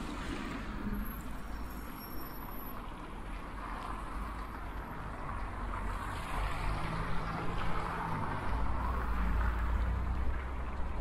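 Road traffic: a motor vehicle passing, its engine and tyre noise growing louder through the second half, with a steady engine hum for a couple of seconds just past the middle.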